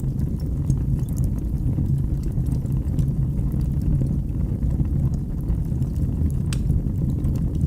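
Wood fire burning in a fireplace: a steady low rumble of flames with scattered crackles and pops, one sharper pop near the end.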